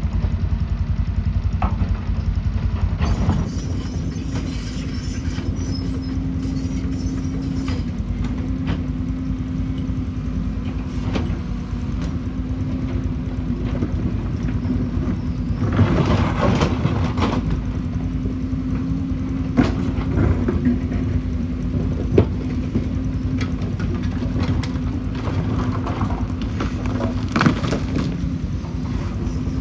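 Excavator's diesel engine running steadily, with a held hum, and several sharp knocks and clanks, most of them in the second half.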